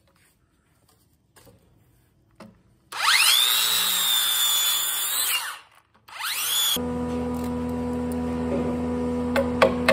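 Makita circular saw spinning up with a rising whine and running for about two and a half seconds as it cuts kerfs into a wooden beam, then winding down, with a brief restart about six seconds in. Background music with plucked notes takes over for the last three seconds.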